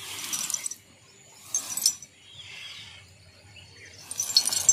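Cast net being lifted and handled: nylon mesh rustling and the sinkers along its edge clinking, in three short bursts, the last and loudest near the end. Faint bird chirps come between the bursts.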